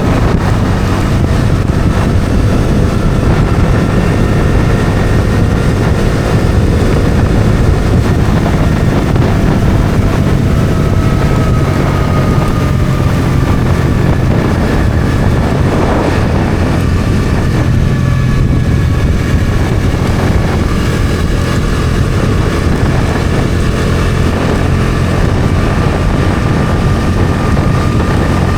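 Bajaj Dominar 400's single-cylinder engine running at a steady cruise, its pitch drifting only slightly, with heavy wind noise on the microphone.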